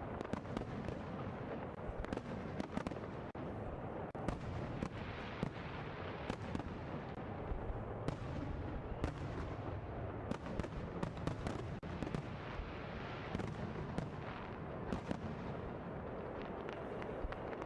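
A fireworks display going off in a dense, continuous barrage: many sharp bangs and crackles over a steady rumble.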